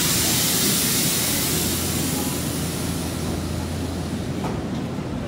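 Nankai 30000 series electric train pulling slowly into the platform and coming to a stop: a rushing hiss from the running gear dies away over the first half, leaving a steady low hum from the train.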